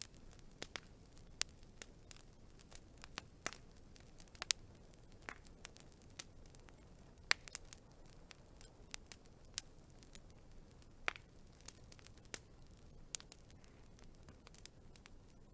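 Wood fire crackling: irregular sharp pops and snaps, a few of them much louder than the rest, over a faint steady hiss.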